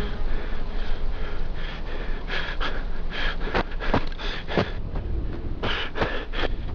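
A man panting and breathing hard, with crunching footsteps on dry, stony ground from a couple of seconds in, over a low steady rumble.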